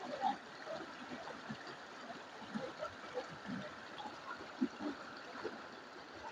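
Stream flowing over stones: a steady rush of water with scattered small gurgles.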